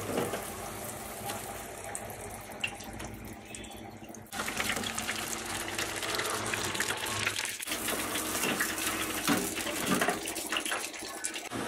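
Breaded chicken patties deep-frying in an electric fryer basket: hot oil sizzling with a dense crackle, much louder from about four seconds in.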